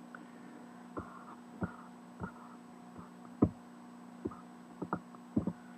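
Computer mouse clicking: about ten short, sharp clicks at irregular intervals, over a faint steady electrical hum.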